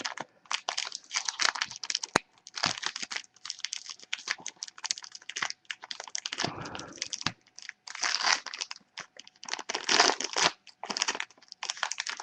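Trading-card pack wrapper crinkling and being torn open, with cards being handled: irregular crackling rustles throughout, one fuller rustle about six seconds in.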